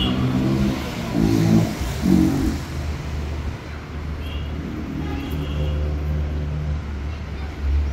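Road traffic: vehicle engines running with a steady low rumble, and short car-horn toots at the start and a couple of times again about halfway through.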